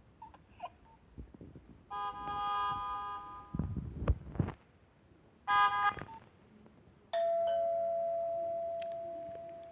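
Nokia 1110i mobile phone playing one of its built-in ringtones: a short burst of electronic tones about two seconds in, another briefly at about five and a half seconds, then a single held note from about seven seconds that fades away. A dull low rumble sounds between the first two bursts.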